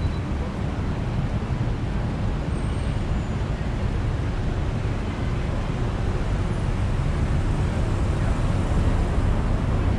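Steady road traffic noise, a continuous low rumble of vehicle engines and tyres.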